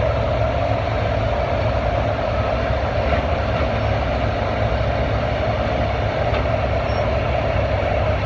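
Heavy farm tractor engine running steadily at a constant speed, a loud, even drone with a deep rumble underneath.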